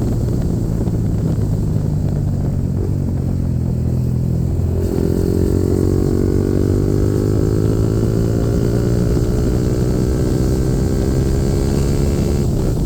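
Yamaha MT-15's single-cylinder engine through a full-system Akrapovic-replica exhaust, running under way. About five seconds in the note changes, then its pitch climbs slowly and steadily as the engine pulls through a gear.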